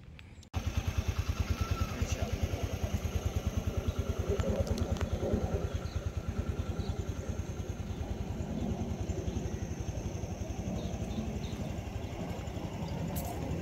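An engine running steadily with an even, rapid low thumping that starts abruptly about half a second in.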